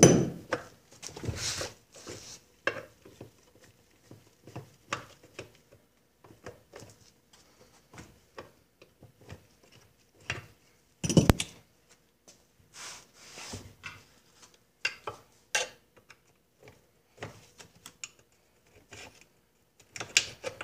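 Scattered metallic clinks and knocks from hands and tools working on a Johnson 9.5 HP outboard engine on a workbench. There is a loud knock at the start and another about eleven seconds in.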